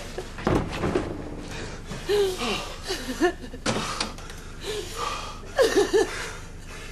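A woman sobbing and whimpering in distress, with broken, wavering cries and gasping breaths, and a couple of dull knocks.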